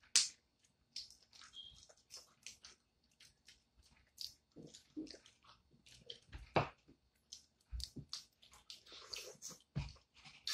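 Close-up chewing and the splitting of boiled peanut shells by hand: a string of irregular small clicks and crackles, with the loudest snaps right at the start and about six and a half seconds in.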